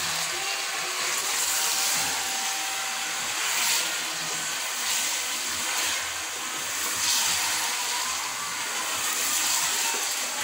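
Chicken and tomatoes sizzling in a large aluminium pot while they are stirred with a wooden spoon: a steady hiss that swells briefly a few times as the spoon turns the food.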